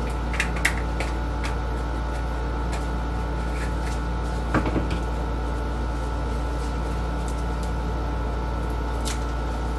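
Room air conditioner running with a steady hum, with a few light clicks and ticks from small packets and cups being handled, a short cluster of them about halfway through.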